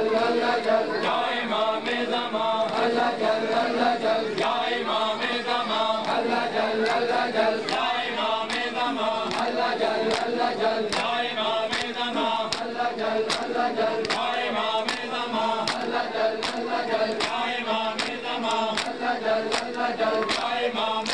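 A crowd of men chanting together in unison over a steady beat of sharp slaps, a little under two a second: open palms striking bare chests in Shia matam (chest-beating mourning).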